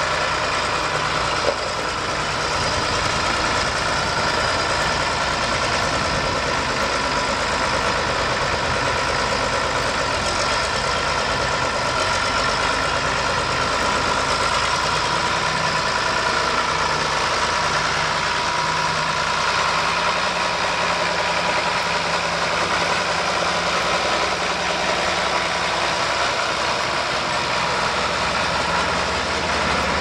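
John Deere 4240 tractor's six-cylinder diesel engine running steadily at low speed as the tractor drives slowly, with one short click about a second and a half in.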